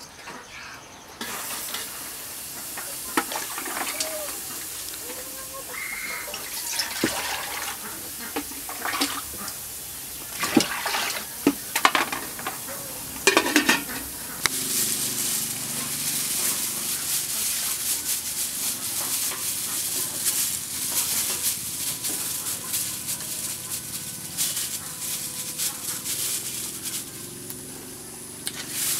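Liquid poured from a metal pot into a wok over a wood fire. Then comes a run of sharp metal clanks, the loudest near the middle, as a metal steamer pot and its lid are set on the wok. A steady hiss follows.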